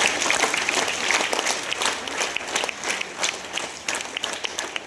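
Audience applauding, many hands clapping together; the clapping thins out to scattered claps and fades near the end.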